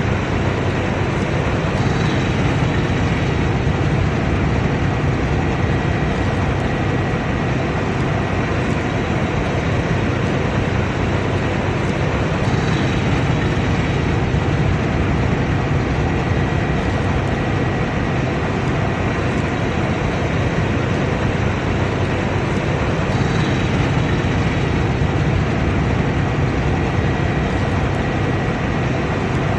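Combine harvester running steadily under load: a deep engine drone mixed with the even rush of the threshing and cleaning machinery, with a faint high whine held throughout.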